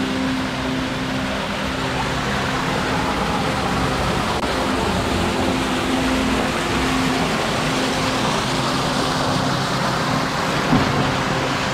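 Rushing and splashing water of a pool's current channel and waterfall, heard close at the waterline, over a steady low hum. A single short thump about eleven seconds in.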